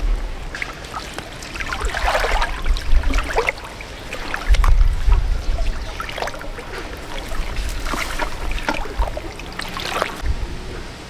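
Water splashing and sloshing in irregular bursts, the strongest about two seconds in and again near the end, over a low rumble.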